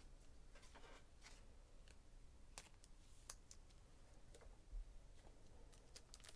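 Near silence with a few faint, sharp clicks scattered at irregular intervals.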